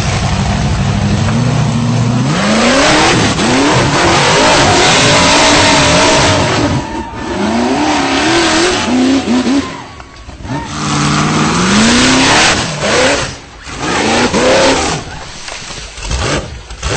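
Off-road tube-frame buggy engine revving hard over and over, its pitch climbing and falling as the throttle is worked. There are brief drops in loudness about two-thirds of the way through.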